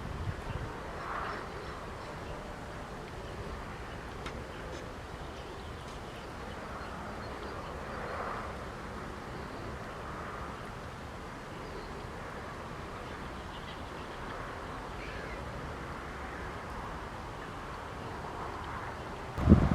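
Outdoor ambience: a steady low rumble of wind or handling noise on the microphone, with a few faint distant bird calls, and one sharp loud thump near the end.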